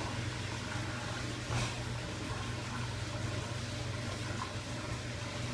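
Water draining out of a dishwasher's tank after its drain lever has been pulled, a steady rushing with a continuous low hum underneath. A single short knock about a second and a half in.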